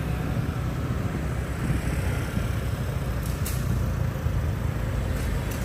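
Steady road and traffic noise while moving through city streets, mostly a constant low rumble, with a couple of faint short high ticks about three seconds in and near the end.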